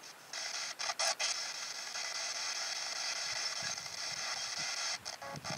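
Handheld spirit box (P-SB7 radio scanner) sweeping through radio stations: a steady static hiss, chopped by a few brief dropouts near the start and again near the end.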